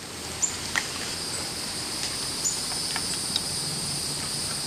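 Steady high-pitched insect chirring in the background, with a few faint clicks.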